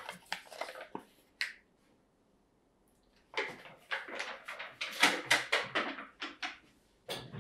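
A disposable aluminium foil baking tray crinkles and clatters as it is handled, in two bouts of rapid crackling and knocking with a short pause between them, around a countertop toaster oven.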